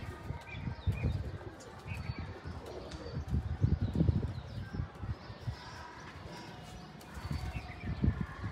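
A loft of pigeons cooing, low rumbling coos coming and going irregularly and loudest about three to four seconds in, with occasional wing flaps.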